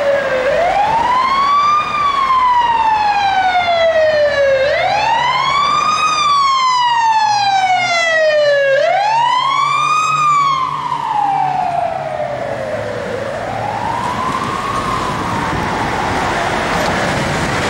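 Emergency-vehicle siren wailing in slow rising and falling sweeps, about four seconds each, loudest for the first ten seconds or so and then fading, over steady road-traffic noise.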